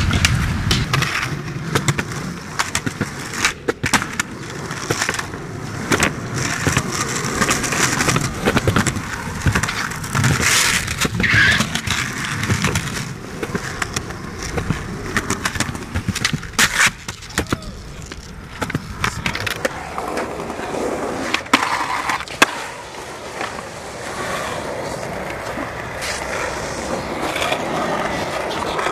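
Skateboard wheels rolling on concrete, broken by frequent sharp clacks and knocks of the board popping, hitting and landing.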